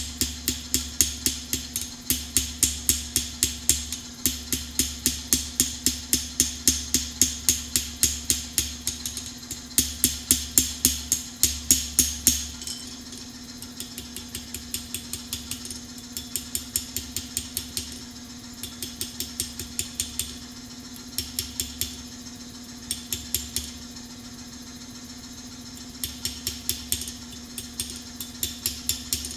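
Hand hammer striking red-hot steel on an anvil while forging out a spatula: steady blows about three a second, then from about twelve seconds in lighter blows in short runs with pauses between. A steady hum runs underneath.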